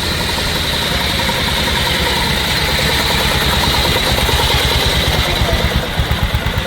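Classic car engine idling close by, a low pulsing beat that grows more distinct near the end.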